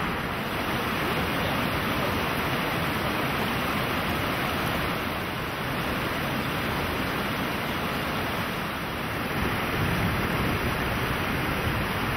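Steady rush of a shallow river running fast over rocks in rapids.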